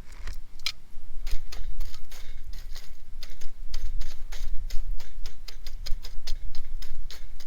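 A quick, uneven series of sharp clicks and ticks, roughly three or four a second, over a constant low rumble.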